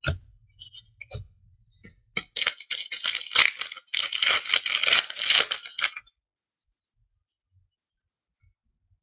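A few light taps of trading cards being set down on a pile, then a plastic card pack wrapper being torn open and crinkled in the hands, a dense crackling for about four seconds that stops about two-thirds of the way through.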